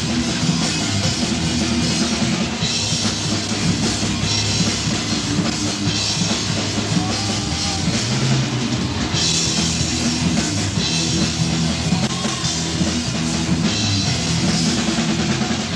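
Heavy metal band playing: distorted electric guitar over a drum kit with crashing cymbals, loud and unbroken.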